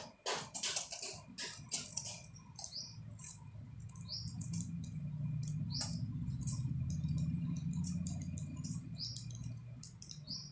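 Knife scraping the peel off a bottle gourd in quick, irregular strokes. A low hum swells and fades in the middle.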